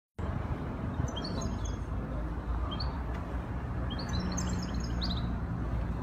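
Small caged songbirds twittering in short runs of high, quick chirps: about a second in, once near three seconds, and a longer run from about four to five seconds. A steady low rumble lies under them.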